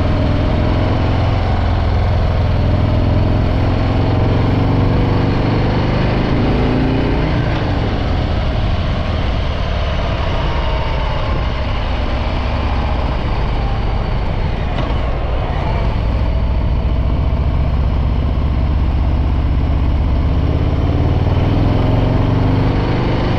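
Harley-Davidson Breakout 114's Milwaukee-Eight 114 V-twin on its stock exhaust, running while being ridden. The engine pitch rises and falls over the first several seconds with changes in throttle, then settles into a steady run.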